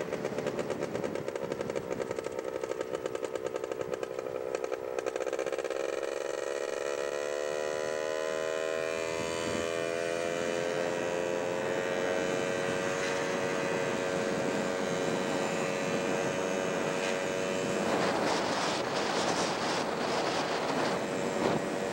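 Motorcycle engine running on the road, pulsing at first, then rising in pitch as it speeds up and settling into a steady cruise. Wind rushes over the microphone, louder over the last few seconds.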